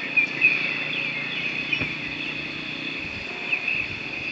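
Steady, high-pitched insect chorus with a few short chirps on top, over a low background rumble.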